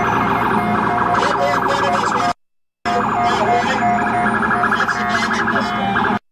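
An emergency vehicle's siren sounding over street traffic noise, with two brief breaks of dead silence where the recording cuts out, one about two and a half seconds in and one near the end.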